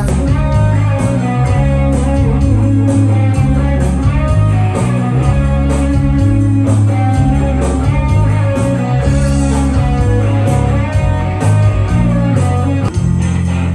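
Live band playing: guitars over bass and a steady drum beat.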